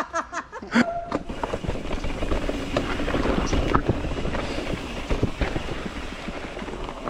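Mountain bike rolling down a dry dirt trail: steady tyre and air rush with many small clicks and rattles from the bike, starting about a second in after a few brief vocal sounds.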